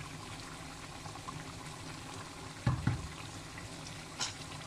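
A pot of chicken and pineapple stew bubbling steadily in its sauce. There is a dull knock a little past halfway, the loudest sound, and a short clink near the end.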